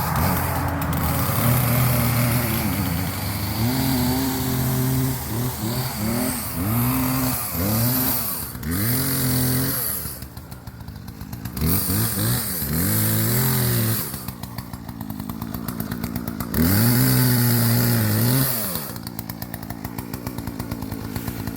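Small chainsaw running, revved up again and again in short bursts and held high twice for a couple of seconds, dropping back to a fast idle between.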